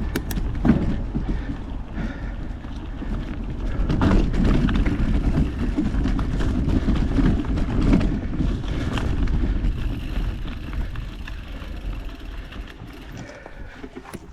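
Mountain bike rolling over a rough dirt trail, heard from a GoPro on the bike or rider: a steady rumble with scattered rattles and knocks and wind on the microphone, fading down over the last few seconds.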